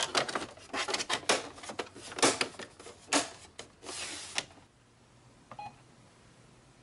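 Hard plastic parts of a Brother MFC-J425W inkjet printer clicking and knocking as they are handled and pressed into place, with a brief rasp near the end of the run. About five and a half seconds in, the control panel gives one short key-press beep.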